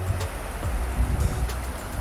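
Wind gusting against the microphone as an uneven low rumble, with faint background music.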